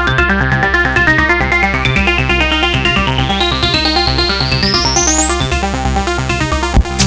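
Korg Volca synthesizer playing a fast sequenced electronic pattern over a steady bass. A tone rises in pitch over about five seconds, then holds a very high note.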